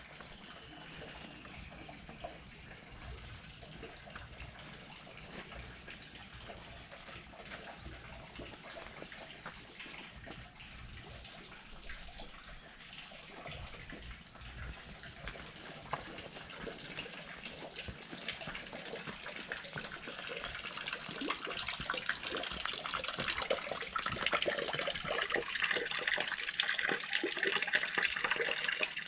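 Spring water running and splashing from a spout in a rock face, a steady rush that grows louder over the second half.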